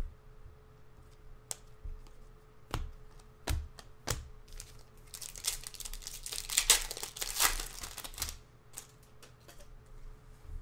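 A few separate sharp clicks, then from about five seconds in a Panini Prizm foil trading-card pack crinkles and crackles for about three seconds as it is torn open by hand.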